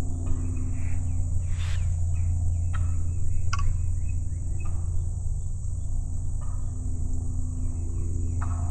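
Wild turkey tom gobbling several times at close range, over a steady high insect buzz and a strong steady low hum.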